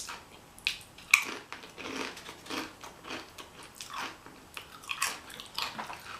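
Close-miked chewing of a burrito bowl: a run of short mouth noises about twice a second, the sharpest a little after one second in.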